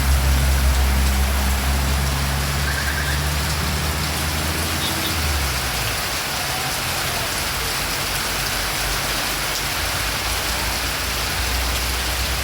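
Heavy rain coming down, a loud steady hiss of drops on surfaces, with a low steady hum under it that fades out about five seconds in.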